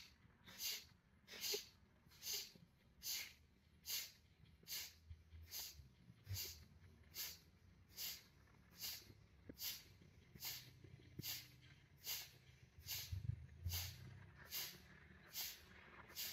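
Kapalabhati breathing: short, forceful exhalations through the nose, each pumped out by drawing the belly in. The sharp puffs come in a steady rhythm, a little more than one a second.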